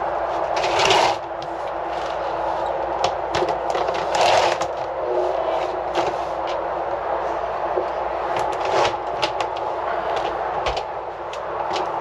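Hard plastic parts of a boat's floor locker being handled and put back: an access plate and a plastic grid mat knocking, clicking and scraping into place, with louder clatters about a second in and about four seconds in. A steady hiss runs underneath.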